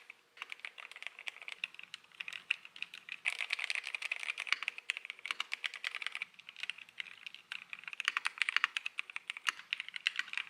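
Typing on a hot-swappable mechanical keyboard: a fast, uneven run of key clacks, thickest in a stretch in the middle and again near the end.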